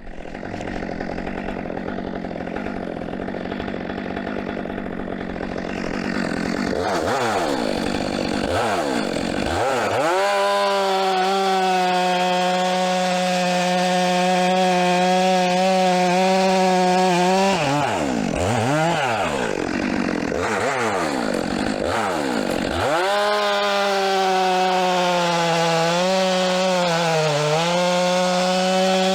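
Chainsaw cutting firewood: the engine revs up and down several times, then holds at full throttle through a cut, with a short pause of revving between two long cuts and the pitch dipping slightly now and then as the chain loads up in the wood.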